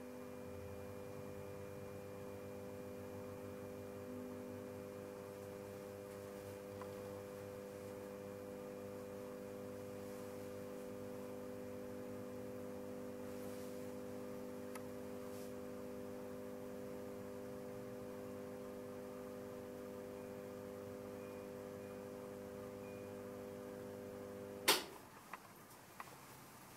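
Magnetic ballast of a metal halide high bay light fitting giving a steady mains hum while the lamp runs up to full brightness, showing the repaired fitting is working. Near the end the hum cuts off at once with a sharp click as the power is switched off, followed by a couple of faint ticks.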